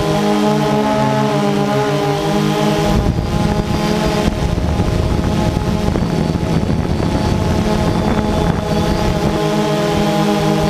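Multirotor drone's electric motors and propellers whining steadily, several tones shifting slightly in pitch as the motor speeds adjust. From about three seconds in until about nine seconds a rushing noise, with its weight in the lows, partly covers the motor tones.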